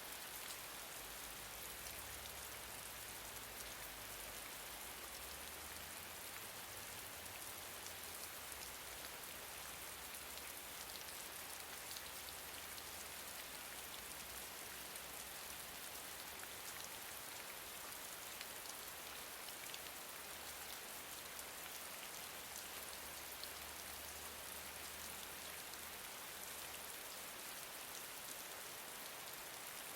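Steady gentle rain, a dense even hiss of many small drops ticking on a surface, with a faint low rumble underneath that drops out near the end.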